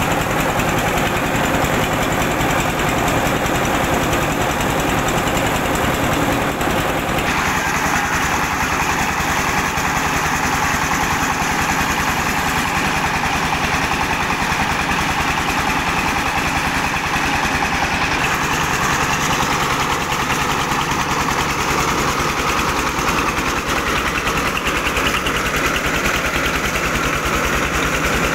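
Diesel engine running steadily under load, driving a rice milling machine as paddy is hulled and milled rice pours out; a dense, continuous mechanical running noise whose tone shifts about seven seconds in.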